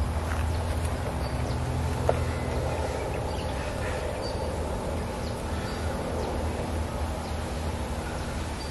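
Outdoor forest ambience: a steady low rumble and hiss with faint, short, high bird chirps scattered through, and one sharp click about two seconds in.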